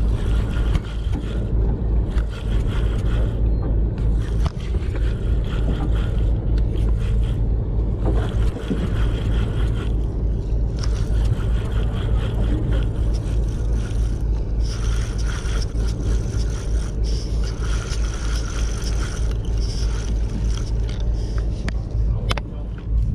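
Steady low rumble of a charter fishing boat's engine, with intermittent scraping sounds over it.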